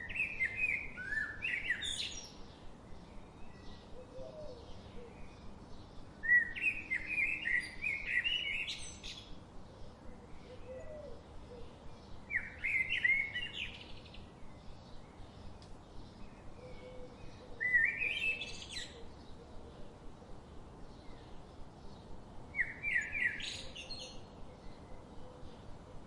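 A songbird singing the same short phrase again and again: a few quick, jumpy whistled notes that end in a fast rising sweep, repeated about every five to six seconds, five times in all. Faint regular ticking runs underneath.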